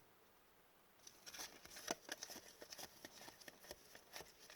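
Faint, quick clicks and rustles of hockey trading cards being handled and flipped through by hand, starting about a second in.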